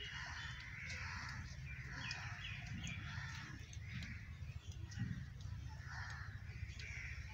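Birds calling outdoors, with a quick run of four short chirps about two seconds in and scattered harsher calls, over a steady low rumble.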